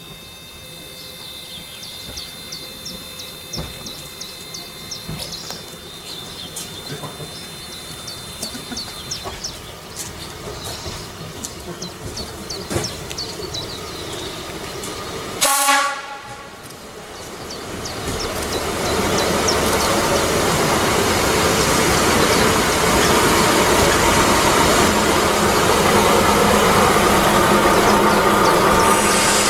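Class 810 diesel railcar approaching, with birds chirping over it at first. About halfway it gives one short horn toot. Its diesel engine and wheels then grow loud and stay loud as it pulls in alongside.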